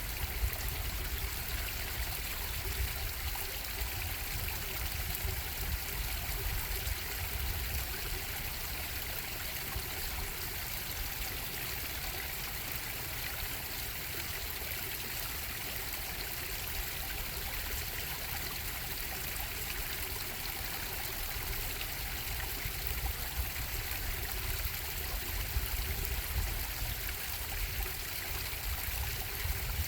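Bubbling stream, water flowing and trickling steadily.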